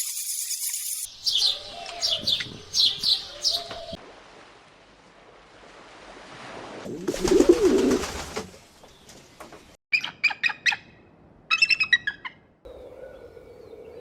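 Small birds chirping in quick series of short, high, falling notes, in two bouts, with a louder rustling burst between them. Near the end a low, steady hum begins.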